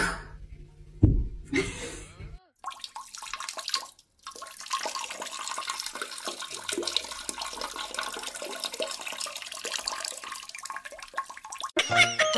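Toilet flushing: a long, steady rush of water that lasts about nine seconds.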